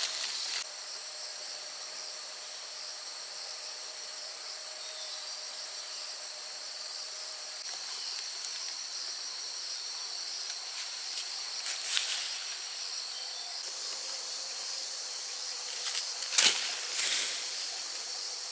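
Steady high-pitched chorus of chirring insects, with part of the chorus dropping out about three-quarters of the way through. Two brief rustling or knocking sounds come partway in and again near the end.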